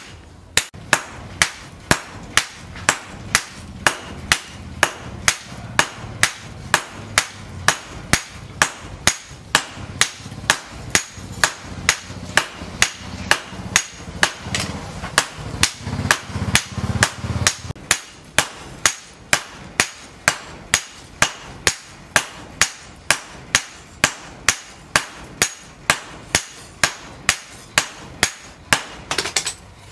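Hammer blows on a red-hot leaf-spring machete blade against a steel post anvil: a steady, even run of sharp metallic strikes, about two to three a second, as the blade is forged to shape. Beneath the strikes a low hum runs through the first part and stops suddenly about two-thirds of the way through.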